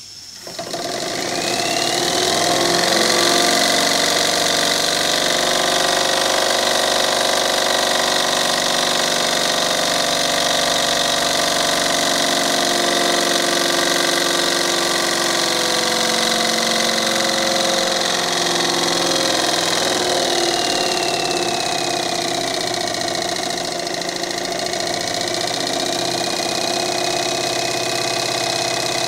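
Jensen 25 model steam engine driving a small DC generator, spinning up in the first second or two and then running fast with a steady mechanical whir. A high whine rises as it gains speed, sags about two-thirds of the way through as the engine slows, then partly recovers.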